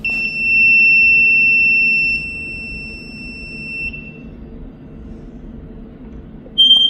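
Electronic aura scanner sounding a steady high-pitched beep for about four seconds while it scans a zone, then a second, shorter and slightly higher beep near the end.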